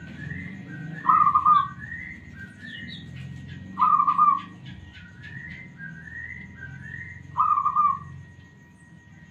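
Zebra dove (perkutut) singing: three loud, trilled cooing phrases spaced about three seconds apart. Behind them runs a quicker series of quieter, higher rising notes, and there is a brief patter of rapid ticks around the middle.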